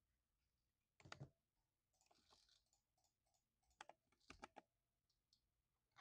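Mechanical keyboard with lubed silver linear switches being typed on in short bursts: faint keystrokes in quick clusters about a second in and again around four seconds in, with a few lighter taps between.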